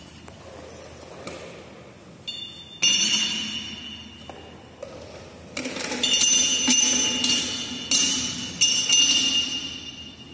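Hard objects poured from a metal bowl into a glass vase, clattering and clinking against the glass with a ringing note. There is one short burst about three seconds in, then a longer run of pouring with several sharp clinks through the second half.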